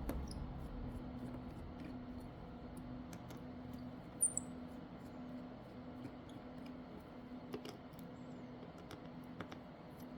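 Faint scattered clicks and light taps from small tools and parts being handled while a smartphone is taken apart, over a steady low hum. The sharpest click comes about four seconds in.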